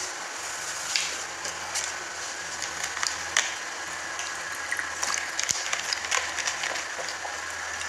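Steady hiss and low electrical hum, with scattered light clicks and rattles.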